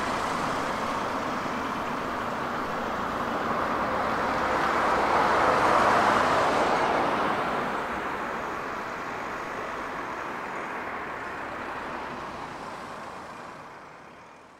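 Road traffic: cars passing on a town street, a steady tyre-and-engine rush that swells as one passes about six seconds in, then fades away near the end.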